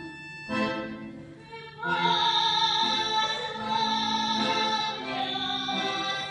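A Voronezh-style Russian folk song: a short instrumental passage, then about two seconds in a woman's voice comes in singing long held notes over the accompaniment.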